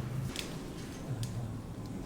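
A few faint, sharp ticks and taps, about half a second apart, over a low steady hum.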